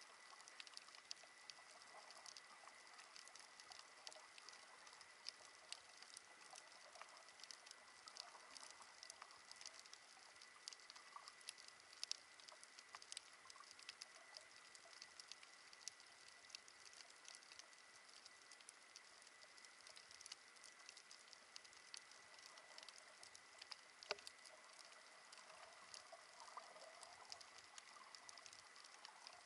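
Faint, continuous crackle of snapping shrimp on a coral reef, heard underwater: a dense patter of tiny clicks with a couple of sharper pops, over a thin steady high tone.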